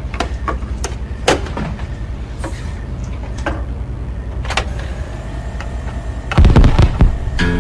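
A vinyl record spinning on a turntable: a steady low hum with scattered crackle clicks. About six seconds in comes a loud, low thump and rumble as the stylus drops onto the record, just before the song starts.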